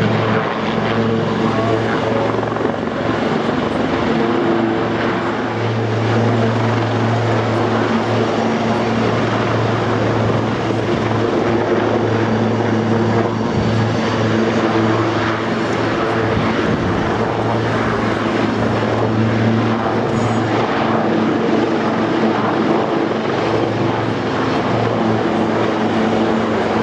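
A pair of Westland Lynx helicopters flying a formation display: the steady drone of their rotors and turbine engines. A low hum runs under a broad rushing noise and holds loud throughout, easing slightly now and then as the aircraft turn.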